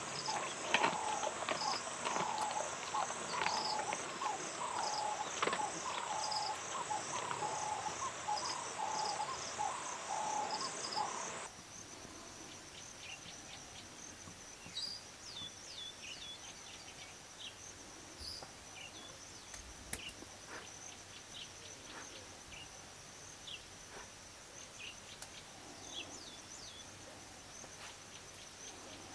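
Savanna ambience of insects and birds. For the first eleven seconds or so a call repeats about twice a second over scattered clicks. Then the sound drops suddenly to a steady high insect trill with brief bird chirps over it.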